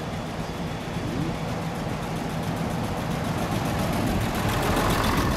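Narrow-gauge railcar pulling into the station and passing close by, its engine running with a steady low hum and the rolling noise growing louder as it nears.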